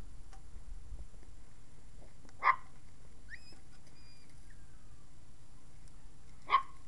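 Two short, sharp puppy yips about four seconds apart, over a steady low background, with faint high chirps in between.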